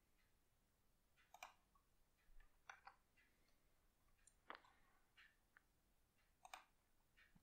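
Near silence: faint room tone with a few short, faint clicks scattered through it.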